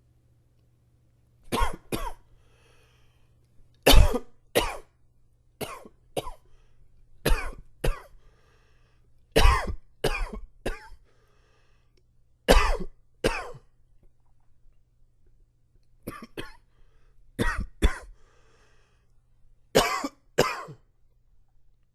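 A man coughing repeatedly in about eight short fits of two or three sharp coughs, with faint breaths between the fits; the cough is set off by allergies.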